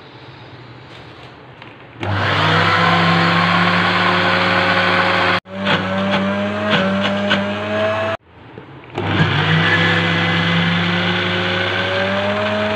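Electric countertop blender with a glass jar starting up about two seconds in and running on a thick mix of chickpeas, sesame and garlic being pureed into hummus, its motor hum slowly rising in pitch. The sound breaks off twice and starts again.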